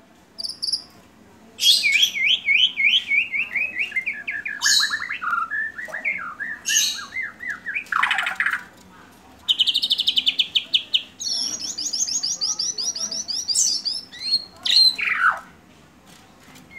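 White-rumped shama (murai batu) in full song: a varied run of loud whistled and chattering phrases with sliding notes, then after a short pause about a third of the way in, a very fast trill and more high phrases. The song is packed with changing phrases, the 'isian' fills prized in contest shamas.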